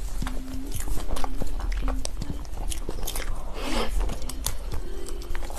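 Close-miked mouth sounds of eating soft mousse cake off a spoon: wet smacking and chewing made up of many quick clicks, with a slurp-like smear near the middle.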